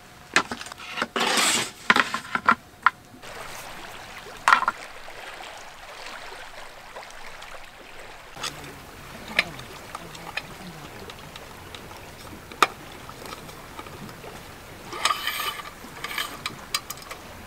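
Clicks and rustling of camping gear being handled for the first few seconds, then a quieter, even background with scattered sharp ticks, and a cluster of clicks near the end as a lantern pole stand is adjusted.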